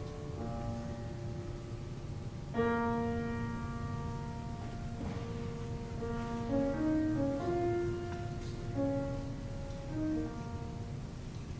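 School concert band playing a slow piece in long held chords, with a louder entry about two and a half seconds in.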